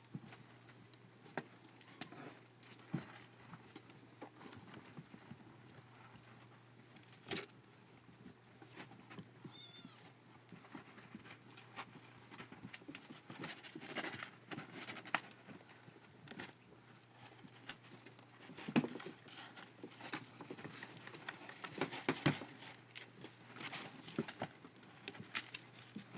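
Kitten pawing and scratching in cat litter: gritty rustles and scrapes in irregular bursts, busier in the second half, with a brief faint high mew about ten seconds in.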